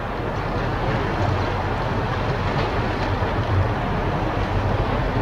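Steady low mechanical rumble under a continuous wash of noise, pulsing slightly but with no distinct events.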